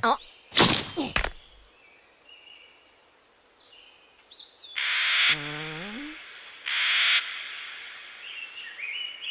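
Bird calls in a cartoon forest soundtrack: small chirps and whistling glides, then two harsh half-second caw-like calls a little under two seconds apart. A few short, loud sound effects open it.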